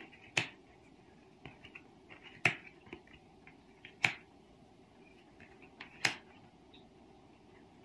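Tarot cards being laid down and set in place by hand on a table: four sharp clicks about two seconds apart, with lighter taps between them.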